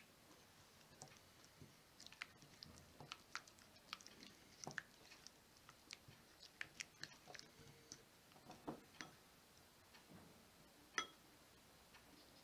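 Faint stirring of a thick dressing with a silicone spatula in a ceramic bowl: soft irregular clicks, taps and wet squishes as the spatula scrapes the bowl, with one sharper knock about eleven seconds in.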